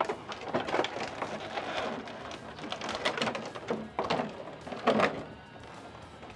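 Clear plastic blister trays crinkling and clacking as they are lifted and shifted by hand, with a run of sharp clicks and a few louder clacks about four and five seconds in.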